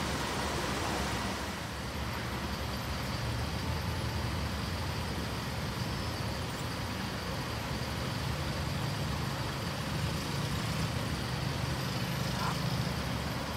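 Steady low mechanical hum over a wash of outdoor traffic noise, the hum growing a little stronger in the second half.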